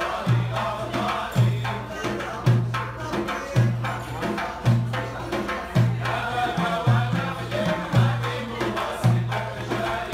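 Background music with a steady low drum beat about once a second, lighter hand percussion between the beats and a melody above.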